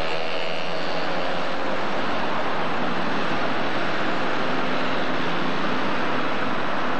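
Street traffic noise from passing cars, a steady rushing roar, with a small moped engine note audible in the first second.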